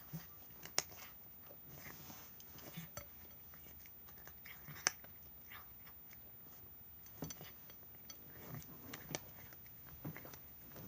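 A cat chewing its food, with irregular short clicks; two sharper, louder clicks come about a second in and near five seconds.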